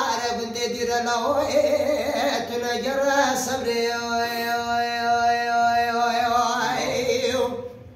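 A man singing unaccompanied. Partway through he holds one long note for about three seconds, and the voice trails off shortly before the end.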